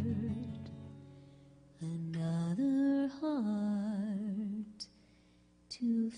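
Woman's voice singing wordless, hummed notes with vibrato, stepping up in pitch and then wavering, over an acoustic guitar chord that rings out and fades in the first two seconds. The singing breaks off briefly near the end and starts again.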